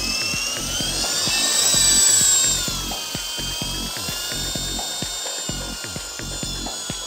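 WLtoys V913 Brushless RC helicopter's brushless motor and rotor whining as it spools up: the pitch rises to a peak about two seconds in, then eases off and holds steady, with a light rapid clicking underneath.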